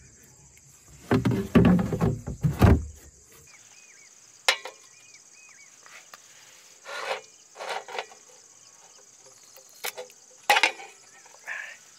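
Glass bottle clattering and knocking against a plastic ice box as it is lifted out, then crickets chirping steadily with scattered small clicks and knocks; about ten and a half seconds in, a sharp click as the bottle's metal cap is pried off with a bottle opener.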